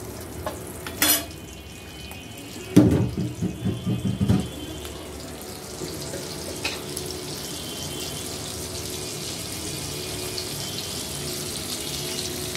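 Onion pieces frying in hot oil in a frying pan: a steady sizzle that grows fuller from about halfway through. About three seconds in, a run of knocks comes from the metal spatula against the pan.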